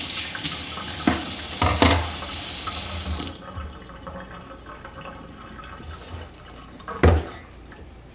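Kitchen faucet running into the sink, shut off suddenly about three seconds in. A few knocks come from handling at the sink; the loudest is near the end.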